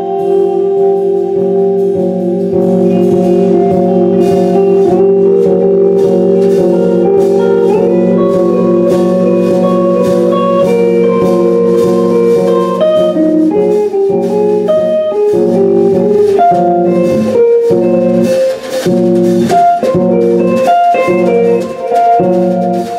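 Live band music with guitar, bass guitar and drum kit playing a jazz-tinged passage with sustained notes over a steady drum beat. Toward the end the band plays clipped, stop-start hits.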